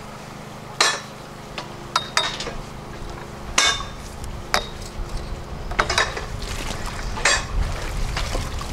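Irregular sharp metallic clanks, about one a second, some ringing briefly, over a steady low machine hum.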